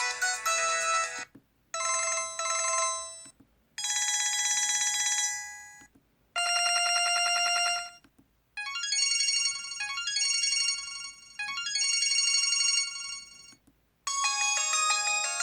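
LG-SH810 mobile phone ringtones played one after another, each lasting a couple of seconds with a short silence between. They include rapid trilling telephone-style rings and a short electronic pattern repeated three times, with melodic snippets at the start and the end.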